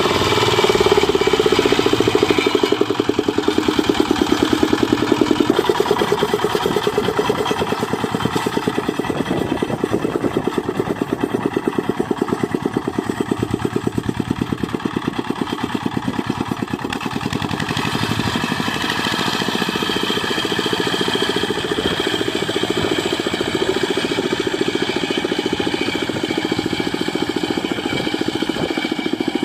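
Single-cylinder Dongfeng diesel engine of a Quick Impala two-wheel hand tractor running steadily under work, a fast even chugging that eases slightly in loudness after the first few seconds.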